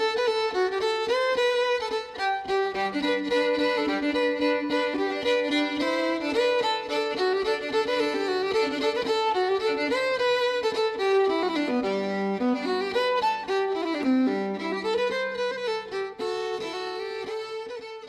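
Instrumental music: a melody over a lower accompaniment line that comes in about three seconds in.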